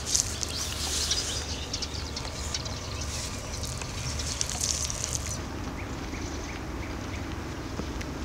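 Paint roller loaded with wet paste rolled over a paper poster on a wall, making a sticky, wet crackle. It stops about five seconds in, leaving a low steady hum.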